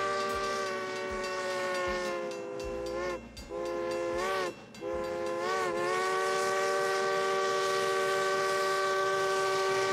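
Steam whistle of Nevada Northern steam locomotive No. 81 blowing a long, steady chord of several notes, cut off briefly twice around three and four and a half seconds in, with short dips in pitch as it is sounded again.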